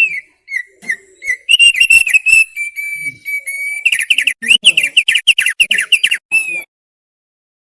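Opior paruh tebal (thick-billed heleia) singing: a varied phrase of clear whistled notes, then a quick run of repeated notes for about two seconds, stopping about a second before the end.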